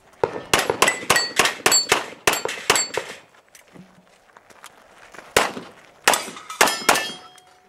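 Handgun shots fired in quick succession, several followed by the ring of steel targets being hit: a fast string of about a dozen shots in the first three seconds, a pause, then four or five more.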